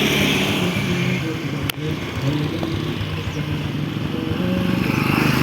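Large outdoor sound system playing loud, bass-heavy music during a sound check, its low notes held and changing in steps. A single sharp click comes about a second and a half in.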